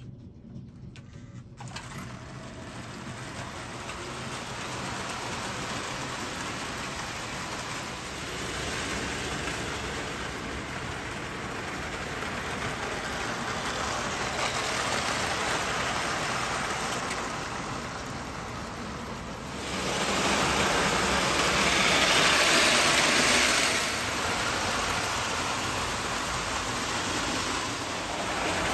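Marx O-gauge toy train running on three-rail tinplate track, a steady rolling rumble and rattle of wheels and motor. It grows louder about twenty seconds in as the train passes close, then eases off a few seconds later.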